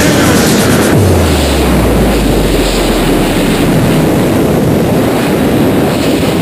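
Heavy wind rush buffeting the helmet-mounted camera's microphone at riding speed, with the Honda CBR1000RR's inline-four engine running beneath it.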